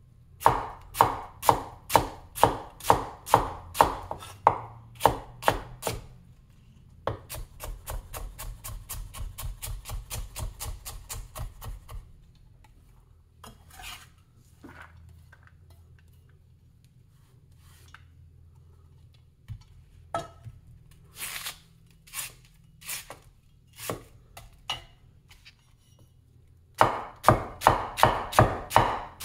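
Large vintage Chinese cleaver chopping red onion on an end-grain wooden cutting board: sharp, even knocks about two or three a second, then a quicker, lighter run of about five a second. A stretch of scattered single knocks follows, and the steady chopping comes back near the end.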